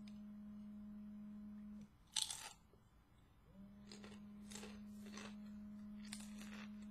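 A mobile phone on vibrate buzzing in two long steady pulses, stopping for under two seconds in between. Over it come a crisp crunch about two seconds in and then crunchy bites and chewing of a sub sandwich.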